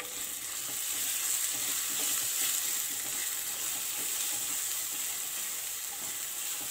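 Onion-and-spice masala sizzling in hot oil in a pan while a spatula stirs it, scraping and slapping through the mixture. The sizzle is steady and rises a little in the first second as the stirring gets going.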